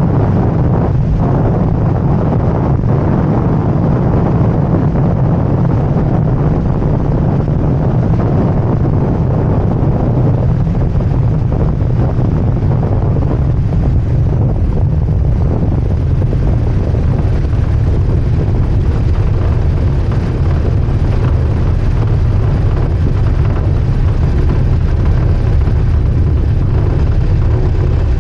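Avid Flyer Mk4 light aircraft's engine and propeller running steadily through a windy landing, with wind buffeting the microphone.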